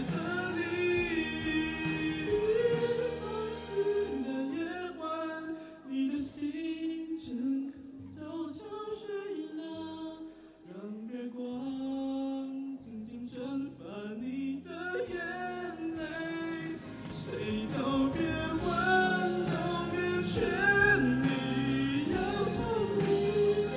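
A young male solo vocalist sings a song into a handheld stage microphone over instrumental accompaniment. The voice glides between notes and holds some long notes.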